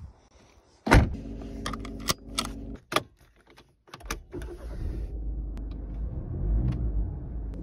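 A car door shuts with a heavy thud, followed by a few clicks as the key goes into the ignition. Then, just after four seconds, the VW Golf 7's 1.6 TDI four-cylinder diesel starts and settles into a steady idle.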